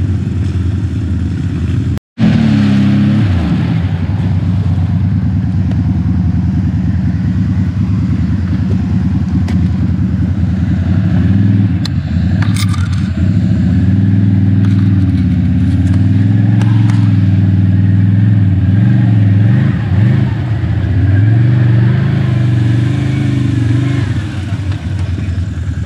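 Can-Am ATV engine running on a trail ride, its pitch rising and falling as the throttle is worked. The sound cuts out for an instant about two seconds in.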